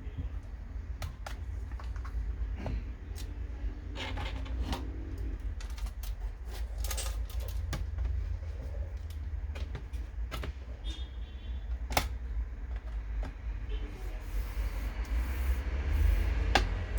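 Scattered sharp clicks and taps of hard plastic and metal parts being handled, over a steady low hum.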